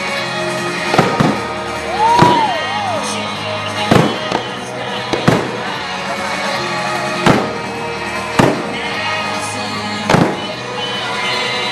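Aerial fireworks shells bursting with sharp bangs, about eight spread through, over music playing with the show.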